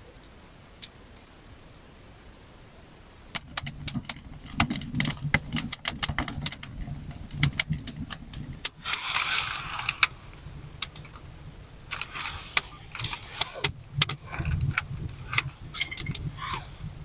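Small metal objects clinking and knocking against each other in a run of sharp clicks, the sort of sound made when handling pots and utensils, with a short rushing hiss about nine seconds in.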